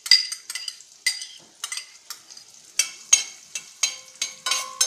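Metal spoon scraping chopped green onion from a ceramic bowl into a stainless steel saucepan and stirring it in melted butter: a run of sharp clinks and scrapes. In the second half several strokes leave the steel pan ringing briefly.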